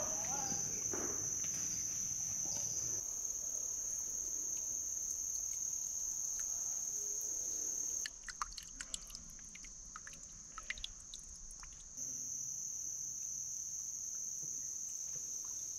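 A steady high-pitched chorus of insects, one unbroken buzzing tone. From about eight to twelve seconds in it drops out, and small drips and trickles of water seeping under tree roots are heard instead; then the insect chorus returns.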